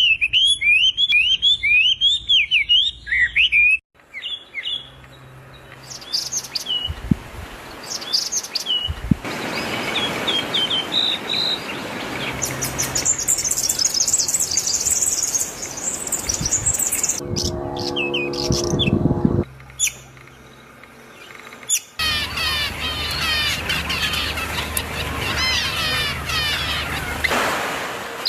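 Small birds chirping and tweeting in a string of short spliced clips, the sound changing abruptly every few seconds; dense, fast chirping chatter fills the last few seconds.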